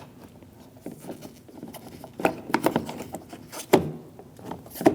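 Irregular clicks and light knocks of plastic and metal parts as a car's exterior door handle is worked into place in the door, with three louder knocks among smaller taps.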